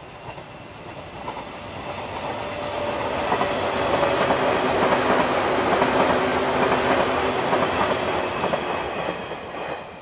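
The 485-series 'Hana' electric multiple unit passing, its wheels clacking over rail joints. The sound builds over the first few seconds, holds loud through the middle, and drops away sharply near the end as the last car goes by.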